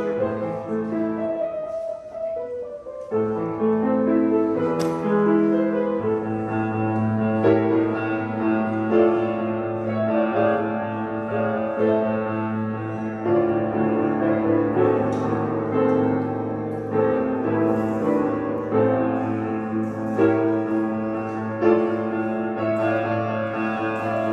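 Piano music playing chords, with a short break about two seconds in before it carries on.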